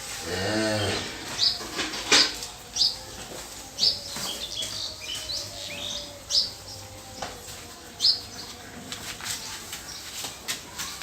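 A cow moos once, for about a second, right at the start. After that, small birds chirp in short high calls every half second or so, with a few sharp clicks among them.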